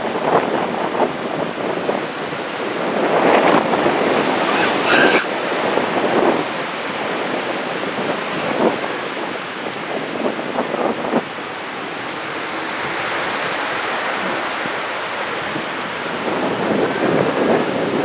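Small surf breaking and washing up the sand at the shoreline, with wind buffeting the microphone. The wash swells louder a few seconds in and again near the end.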